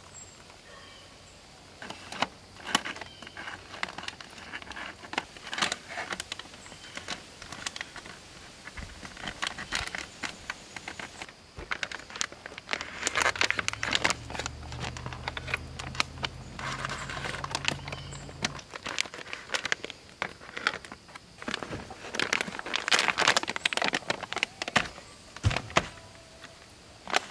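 Foil freeze-dried meal pouch (Mountain House) crinkling and rustling in clusters as it is handled, opened and folded. A low hum runs underneath for a few seconds around the middle.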